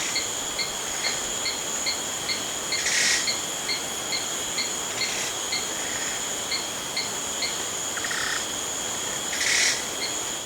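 Jungle night ambience of insects: a steady high-pitched insect drone with a cricket chirping evenly about twice a second, and a few brief louder calls over it. Cuts off suddenly at the end.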